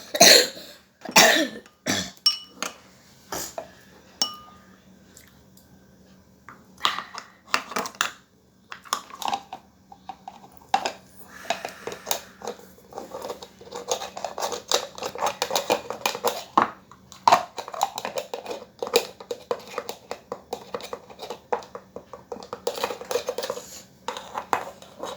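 Spoon and dishes clinking and clattering in a long run of sharp knocks, with a quieter stretch about four to six seconds in.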